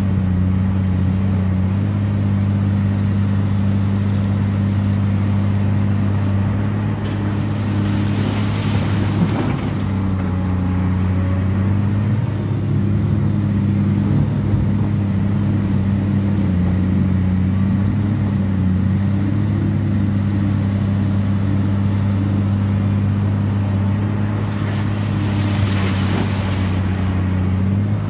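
Excavator's diesel engine running steadily while it loads coal, with a low, even hum that wavers slightly in pitch. Twice a brief rushing noise rises over it, about a third of the way in and again near the end.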